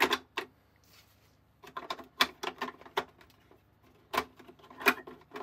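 Hard plastic parts of a toy snack maker clicking and knocking as a piece is worked and locked into place: a string of sharp separate clicks, bunched in the middle and again near the end.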